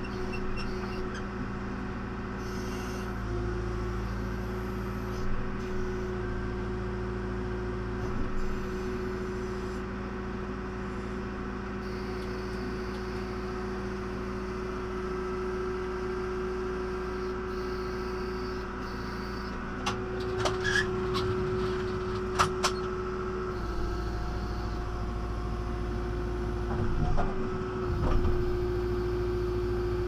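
John Deere 310SG backhoe's diesel engine running steadily, heard from inside the cab, its pitch dipping slightly a few times. A few sharp clicks and knocks about two-thirds of the way through.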